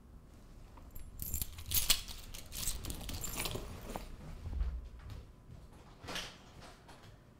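Keys jangling together with a bag and clothes rustling as someone gathers their things and walks off, with a short thud about six seconds in.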